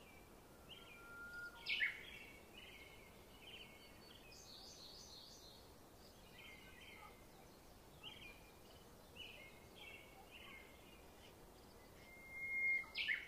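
Small birds chirping and twittering in short repeated phrases over a faint steady hiss, with two louder calls, one about two seconds in and one near the end.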